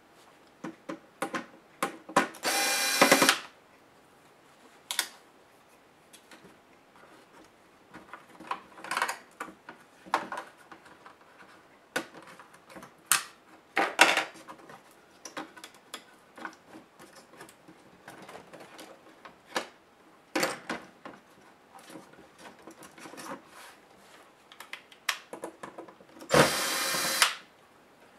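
Small electric screwdriver whirring twice, about a second each time, near the start and again near the end, backing out laptop screws. In between come scattered clicks and taps of plastic parts and cables being handled.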